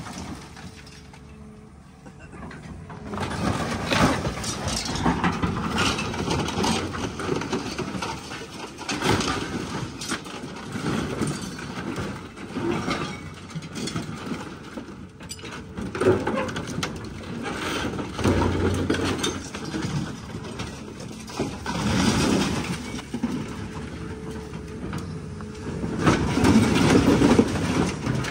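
Caterpillar excavator running under load while its bucket and thumb grab, crush and drag an old car body: irregular crunching, scraping and banging of sheet metal, loudest near the end.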